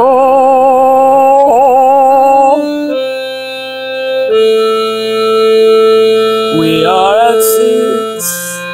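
Electronic keyboard played with an organ-like, reedy voice: held chords changing every second or two, the notes wavering for the first couple of seconds and sliding upward about seven seconds in.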